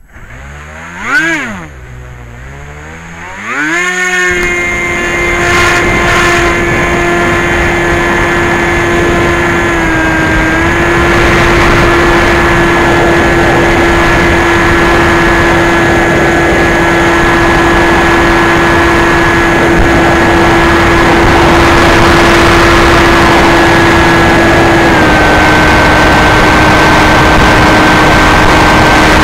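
Electric brushless motor (NTM Prop Drive 35-30A 1400kv) spinning a 9x6 propeller on a Bixler 2 model plane, heard from its onboard camera. A brief throttle blip about a second in, then the motor spins up to a steady high whine near four seconds, with a rush of air over the microphone. The whine dips slightly near ten seconds and settles a little lower near the end as the throttle eases.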